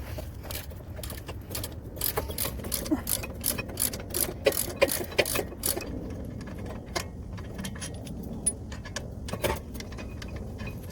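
Irregular metallic clicks and clinks of hand tools and loose brake hardware being handled while the caliper bracket is unbolted, coming thickly for a few seconds and then only now and then, over a steady low rumble.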